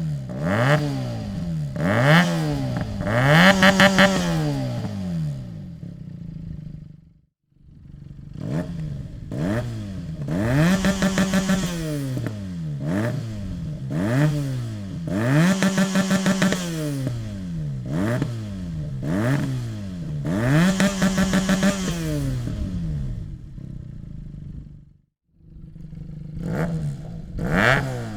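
Benelli 302 S motorcycle's 300 cc parallel-twin engine, with a Dominator aftermarket exhaust, revved in repeated sharp blips that rise and fall. Several blips are held at the top against the rev limiter with a rapid stuttering cut-out. The sound breaks off briefly twice.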